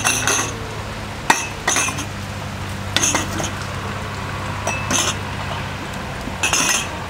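Light metallic clinks and knocks, about six of them spread over several seconds, with a ringing tone to each. Under them runs a low steady hum that stops about six seconds in.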